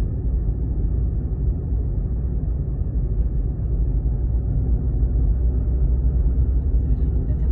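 Steady low rumble of a car driving along a road, road and engine noise with no distinct pitched tone.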